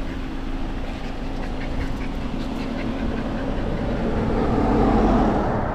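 Vehicle noise on the road: a steady low engine hum, then a passing vehicle that swells to its loudest about five seconds in and starts to fade.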